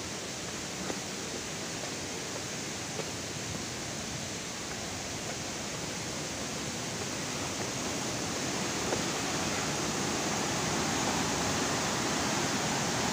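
Steady rush of a forest stream and waterfall, growing a little louder toward the end, with a few faint taps.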